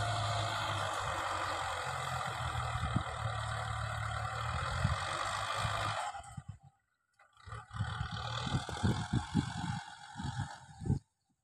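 Kubota M6040 tractor's four-cylinder diesel engine running steadily under load while its rear rotary tiller churns wet soil. About six seconds in the sound drops away and gives way to irregular low thuds over a fainter engine hum.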